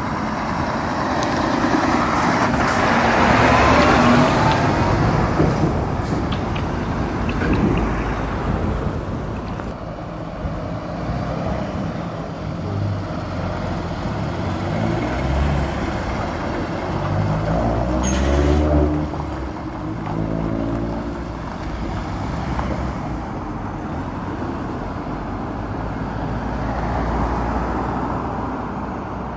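Lorry diesel engines pulling away from a junction and passing close one after another over steady road traffic. The loudest pass comes early on. Around the middle the engine note climbs in steps through the gears, with a brief hiss a little past halfway.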